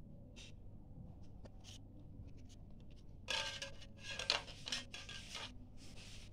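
Plastic smart card handled and slid against the plastic top of a satellite set-top box: short scratches at first, then louder scraping and rubbing from about three to five and a half seconds in, with one more brief scrape near the end.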